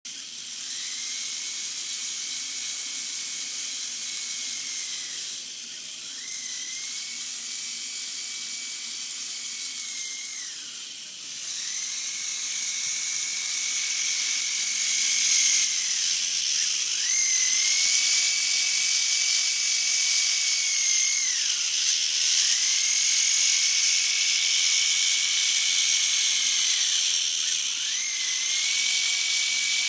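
Hobby RC servo motors whirring with a high gear whine as they sweep. The whine comes in runs of about four to five seconds, rising in pitch as each run starts and falling as it stops, with short pauses between runs.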